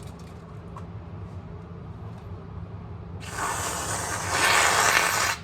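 Aerosol can of pumpkin spice whipped topping spraying onto iced coffee: a hiss starts about three seconds in, gets louder about a second later and cuts off suddenly.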